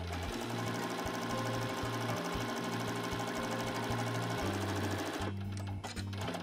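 Janome electric sewing machine stitching steadily, stopping about five seconds in, followed by a few light clicks as it comes to rest and the fabric is handled.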